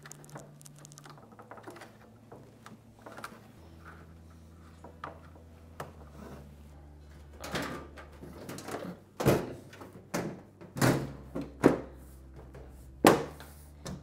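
Front panel of a top-loading washing machine knocking and bumping against the cabinet as it is fitted back into place: a run of sharp thuds in the second half. Before that, faint clicks of wire connectors being pushed onto the drain pump.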